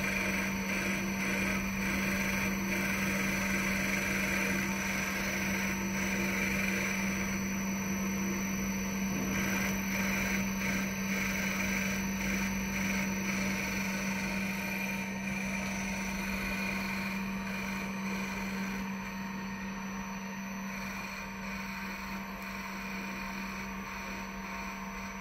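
Spindle of a 5-axis desktop CNC milling machine running while its end mill cuts a pink foam block: a steady hum with a hiss of cutting. It grows slightly quieter over the last third.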